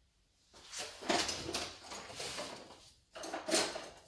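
Handling noise at a workbench: two stretches of rustling and scraping as parts and tools are moved about, the first beginning about half a second in and the second near the end.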